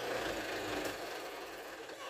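Diesel engine of a loaded Mitsubishi Fuso dump truck running steadily as the truck creeps across the dirt.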